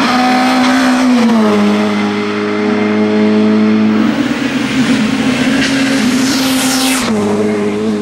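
Renault Laguna BTCC touring car's naturally aspirated 2-litre four-cylinder racing engine running at high revs. Its note steps down about a second in and then holds steady. Near the end a car passes close by, with a burst of harsh high sound and then a sharp fall in pitch as it goes past.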